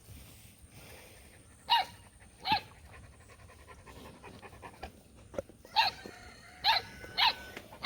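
A livestock guardian puppy barking in five short, high yips, two close together early on and three more in quick succession in the second half.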